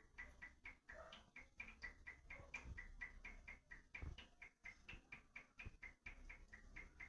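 Water drops falling in a quick, fairly even run, about four to five a second, each drop a faint short tick at much the same pitch.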